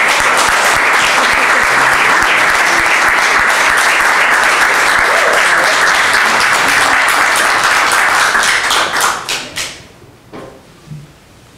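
Audience applauding, loud and steady, thinning out to a few last claps about nine seconds in. A couple of soft knocks follow near the end.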